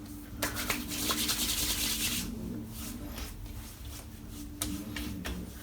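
Hands rubbing aftershave balm, with a brisk rubbing hiss for about two seconds, followed by a few light taps.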